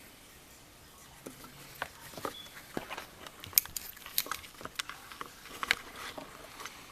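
Irregular light clicks and taps of small metal lock parts, the pins and springs of a disassembled pin-tumbler lock, being handled and set down, starting about a second in and stopping near the end.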